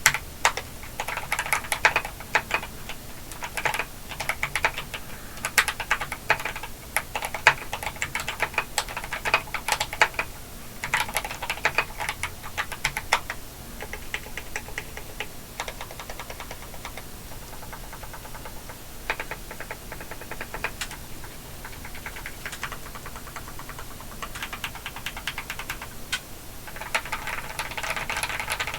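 Modded TOM980 mechanical keyboard with lubed Akko Starfish switches, dampened inside with a silicone pour, felt and tape, being typed on. Runs of fast keystrokes, sparser through the middle and dense again near the end.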